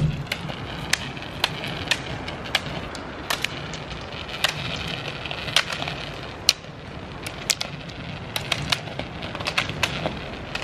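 Skate roller skis rolling on asphalt with a steady whir, and frequent sharp, irregular clicks of ski-pole tips striking the road as several skiers skate past.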